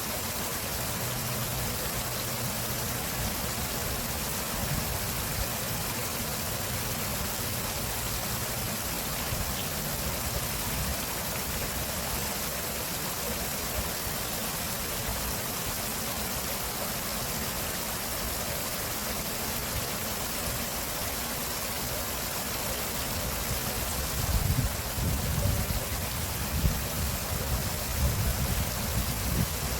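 Stream water rushing and splashing steadily. In the last few seconds, irregular low rumbles rise under the water sound.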